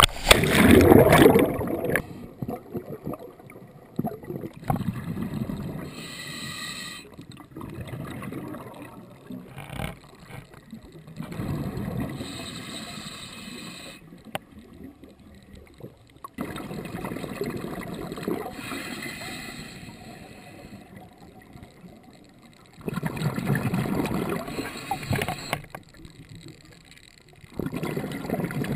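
Splash of a scuba diver rolling backward off a boat into the sea. Then underwater breathing through a regulator, with a swell of bubbling every five or six seconds.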